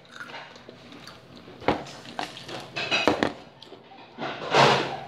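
Eating and handling sounds while snacking on Pringles cheese crisps: a sharp knock about a second and a half in, then short noisy crunching bursts, the loudest near the end.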